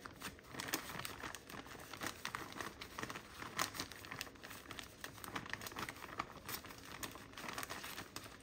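Powdered sugar being measured into a measuring cup for frosting: faint, irregular crinkling and light scraping, many small rustles and clicks throughout.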